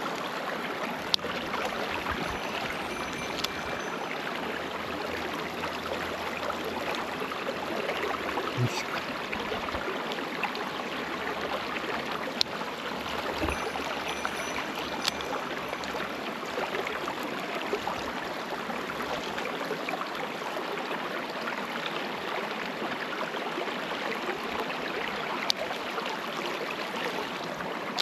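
Mountain stream flowing: a steady rush of running water, broken by three sharp clicks spread through it.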